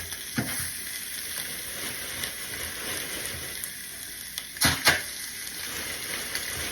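Chicken pieces searing in a dry preheated Saladmaster skillet with no oil: a steady sizzle, with a couple of brief knocks about five seconds in.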